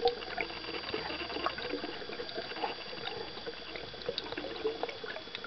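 Underwater ambience heard through a submerged camera: a constant irregular crackle of small clicks and pops over a hiss of water, with a faint steady high whine. There is a louder click at the start and another at the very end.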